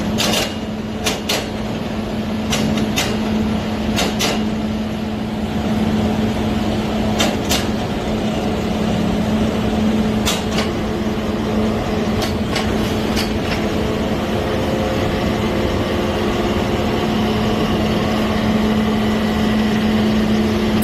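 3-ton electric wire rope hoist worked from a wireless remote. Its controls click sharply in pairs, about eight times over the first two-thirds, as movements are switched on and off, over a steady machine hum.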